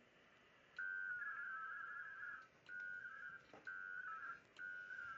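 WINMOR digital-mode modem tones on the HF radio link: packets of warbling tones around 1.5 kHz, each opening with a steady tone. One long packet starts about a second in, followed by shorter packets about once a second, as the two stations connect and begin passing a Winlink email.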